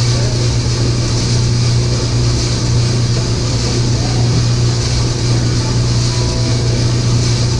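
Probat L5 drum coffee roaster running steadily, a constant low hum of the drum motor and fan with an even hiss over it, as pale green beans tumble in the drum early in the roast.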